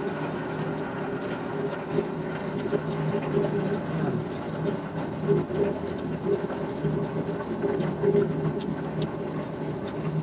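Air conditioning unit running, a steady mechanical drone from its three-phase blower motor, which is wired backwards and spinning in reverse.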